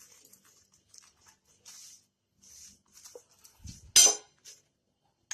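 Oil being spread over a paratha on a hot tawa: short bursts of sizzling hiss with light scraping and tapping of a utensil, and one louder, sharp metallic clatter about four seconds in.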